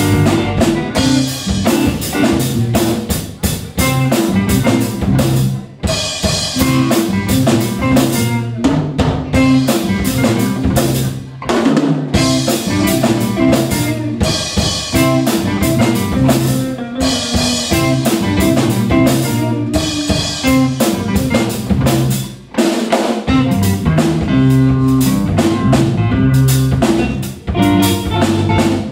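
Live rock band playing: drum kit with snare and bass drum, electric guitars and bass guitar. The music dips briefly a few times.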